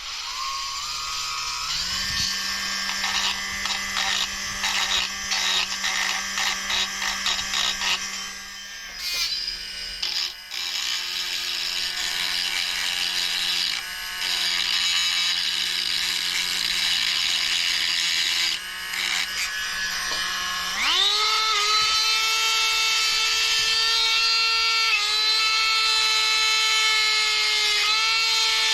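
Small high-speed electric rotary tool whining as it spins up, then running with the pitch dipping and wavering as it bites into metal, cleaning up a fresh weld. About 21 s in, its pitch jumps sharply higher and stays there as the speed is turned up.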